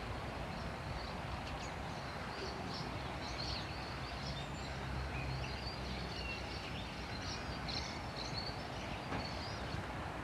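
Outdoor ambience: a steady low rumble with scattered small bird chirps and twitters throughout.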